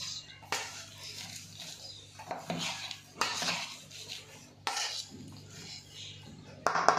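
Wooden masher mashing boiled potato and chickpea filling in a large steel bowl: about four knocks of wood on steel, with mushy scraping between. Background music comes in near the end.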